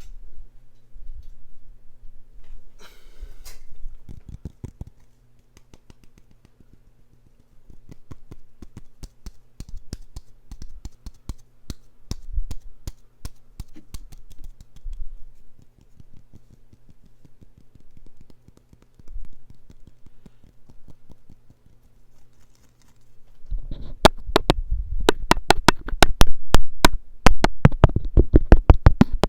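Close-miked ASMR trigger sounds: a long run of quick, sharp clicks and taps, fairly soft at first and becoming much louder and denser about four-fifths of the way through.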